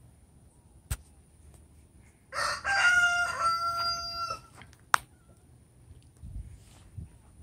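A chicken crows once, a full cock-a-doodle-doo lasting about two seconds that starts a little over two seconds in. There is a sharp click shortly before it and another right after it.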